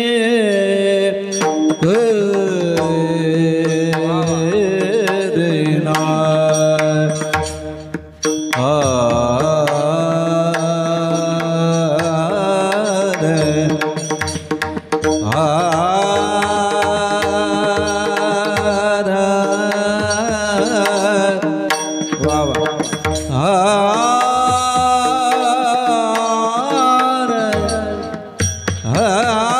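Marathi bhajan music: long, wavering sung notes held over steady sustained tones, with mridang drum strokes underneath.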